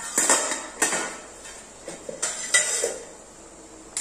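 Stainless steel cookware clinking and clattering: a steel plate and steamer pot knocking together in several sharp metal clinks with a brief ring, most of them in the first three seconds, as the cover is taken off the steamer.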